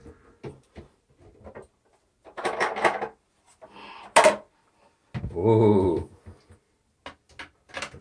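Hard plastic clicks and clunks from handling the Hoover SteamVac Widepath's dirty-water recovery tank, with one sharp, loud clack about four seconds in.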